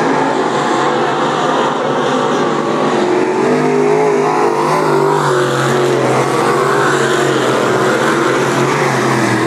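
Dirt-track race cars' engines running hard as the cars lap the track, several engine notes rising and falling as they pass.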